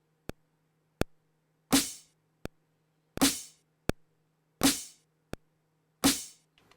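MPC One metronome clicking at about 83 beats per minute while a snare drum sample is played on every second click, four snare hits in all, the snare the loudest sound. The snare is being recorded into the sequence as a backbeat.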